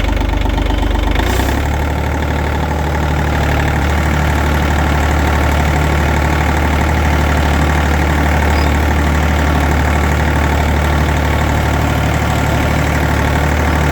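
Small farm tractor's engine running steadily as it is driven, the engine speed stepping up about a second in and then holding.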